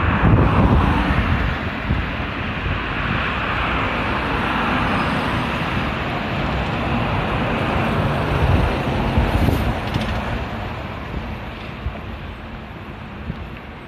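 Road traffic passing close by on a multi-lane road: cars and a heavy tanker truck going by with a steady tyre and engine rumble. The noise swells twice, then eases off over the last few seconds.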